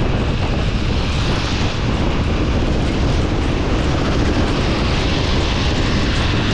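Loud, steady rush of wind on the microphone and road noise while riding a Honda Super Cub C125 motorcycle, the small engine buried under the noise.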